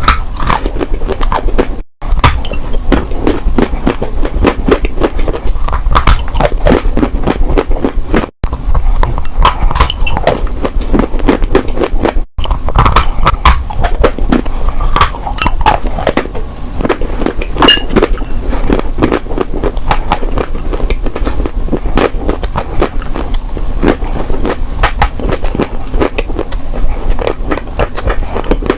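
Dry, crunchy clay being crunched close to the microphone: a dense, irregular run of crackles, snaps and gritty scrapes, broken by three abrupt brief dropouts about 2, 8 and 12 seconds in.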